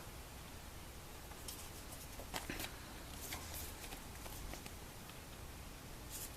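Faint rustling and a few soft clicks of trading cards being handled and shuffled through by hand, over quiet room tone.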